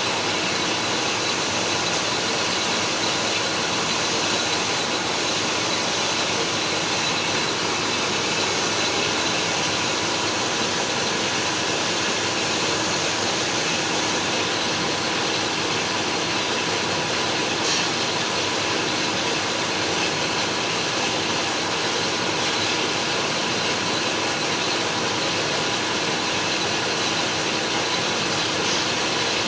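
Lathe turning a cover workpiece, running steadily with a continuous high whine over its machining noise, unbroken throughout.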